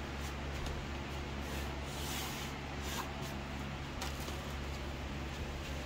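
A steady low hum, with scattered faint rustles and soft clicks from things being handled. The loudest is a hissing rustle about two seconds in.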